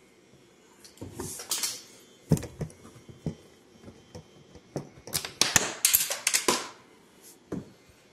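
Hand work on small car parts: scattered clicks and knocks, then a burst of clattering and scraping about five seconds in, like parts and fasteners being handled and pried loose.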